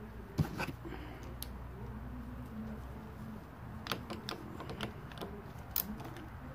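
A socket ratchet clicking and tapping in short, irregular strokes as it tightens the mounting nuts of a Weber 34 ICT carburetor onto its intake manifold. A low steady hum runs underneath.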